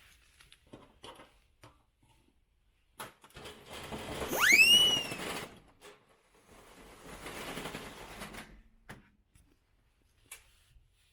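A sliding door rolling in its track in two pushes, with light clicks before and a short high squeal about four and a half seconds in that rises sharply and then drops away.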